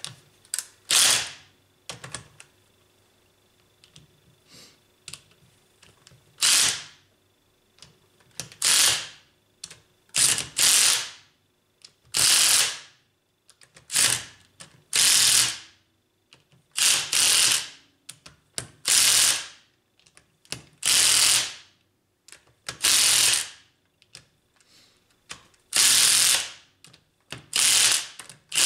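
Ratchet wrench worked stroke by stroke: about a dozen short bursts of rapid clicking, one every two seconds or so.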